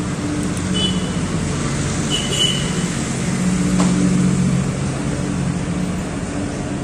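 Steady road traffic noise from passing motor vehicles, with a continuous engine hum and two brief faint high tones early on.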